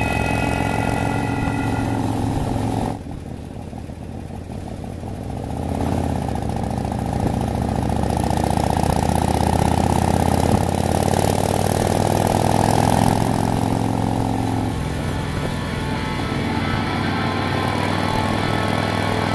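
Harley-Davidson V-twin motorcycle engine on the move, picked up by a phone in the rider's backpack. About three seconds in the engine note drops back, then climbs in pitch as the bike accelerates, and near the end it settles into a steady cruise.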